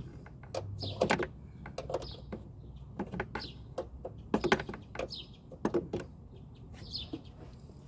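Irregular metallic clicks, knocks and clinks of hand tools being handled and set down, some with a brief ring.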